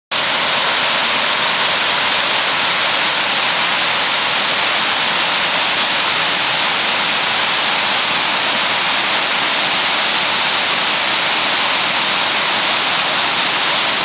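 Waterfall cascading over rock ledges into a pool: a loud, steady rush of falling water.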